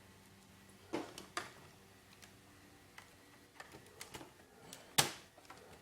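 Clicks and knocks from handling the parts of a notebook computer being taken apart: two sharp clicks about a second in, a few small ticks, and a louder knock about five seconds in.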